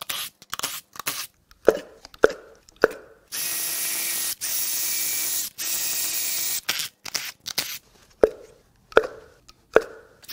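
Ignition coils being pulled out of the spark plug tubes of a Ford 2.7 EcoBoost V6, each letting go with a hollow pop: three pops early on and three more near the end. Between them, a cordless power tool runs in several short bursts of about a second each, backing out the coil bolts.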